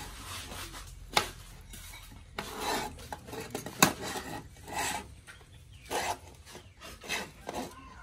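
Scraping and rubbing of a small plastic object against a plastic tabletop as it is handled and pushed about, with a few sharp knocks, the loudest about four seconds in.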